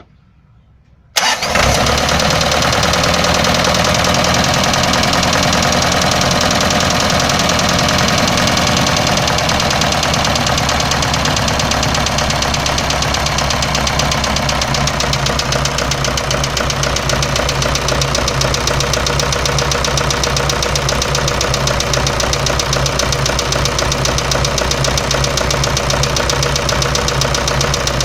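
Hyundai D4AL four-cylinder diesel engine starting about a second in and then idling, with a ringing knock running through its idle. The knock is the unexplained fault the owner is asking about.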